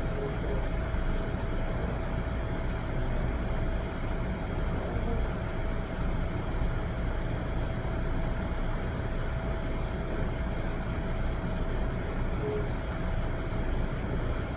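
Steady background rumble and hiss with a faint constant whine, unchanging throughout.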